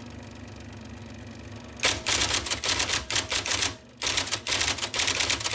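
1979 IBM Selectric II electric typewriter, its motor humming steadily, then about two seconds in a fast run of keystrokes as the type ball strikes the paper, with a brief pause about four seconds in before the typing resumes.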